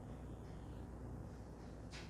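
Faint soft swishes of hands rubbing over hair and scalp during a head massage, over a steady low hum, with one brief sharper brush near the end.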